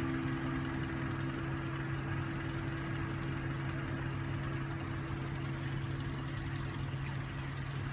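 A steady low hum, like an idling engine, made of a few held low tones over a faint rushing noise; the higher of the held tones stop near the end.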